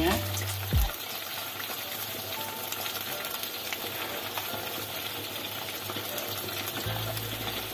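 Canned sardines, onions and bell peppers simmering and sizzling in sauce in a wok: a steady, even hiss, with a knock or two in the first second.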